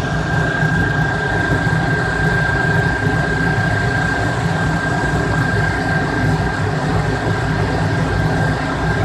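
A loud, steady low engine rumble with a single steady high-pitched whine over it, like heavy machinery or a vehicle running close by.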